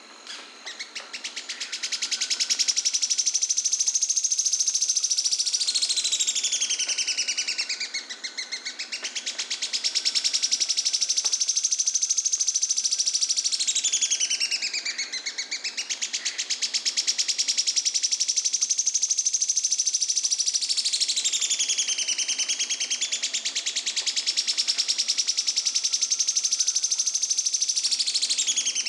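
Sharp-tailed streamcreeper (João-porca, Lochmias nematura) singing: a long, very fast dry trill of many notes a second, high-pitched, dipping lower and climbing back up about three times. It swells in over the first two seconds and cuts off abruptly near the end.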